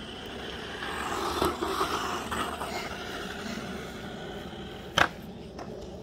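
Remote-control car running on asphalt, its motor and tyres swelling in a rough scraping noise for a couple of seconds about a second in, then fading. A single sharp click about five seconds in.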